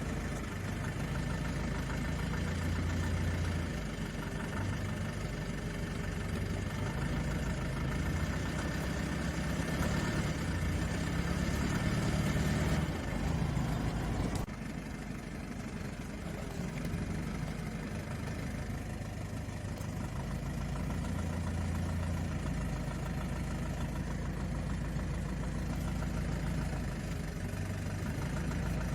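BMW 320i E90's N46 four-cylinder petrol engine running at low revs, with a repeating knock; the engine note rises a little in places and falls back about halfway through. The knock gets worse under light load in gear and the owner suspects rod knock, the flexplate or camshaft bearings.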